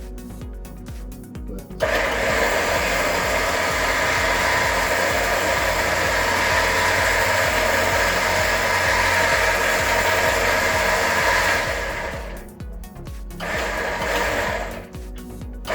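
A 9,000 lb Harbor Freight Badlands electric winch motor spooling in its cable. It starts about two seconds in with a steady whine, runs for about ten seconds and winds down. A second short run comes near the end.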